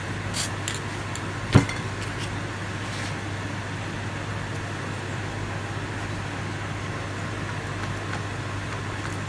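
Steady background hum and hiss, with a single sharp knock about one and a half seconds in.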